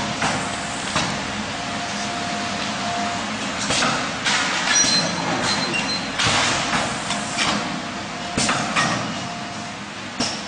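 Tea stick packing machine running: a steady mechanical hiss with sharp clacks and knocks at uneven intervals.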